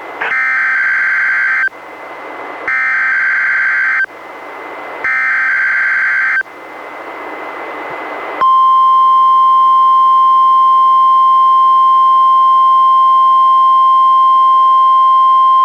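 A NOAA Weather Radio Required Weekly Test heard through a Reecom R-1630 weather radio's speaker. It opens with three harsh, buzzing bursts of SAME digital header data, each about a second and a half long, with radio hiss between them. About eight seconds in, the steady single-pitch 1050 Hz warning alarm tone starts and holds.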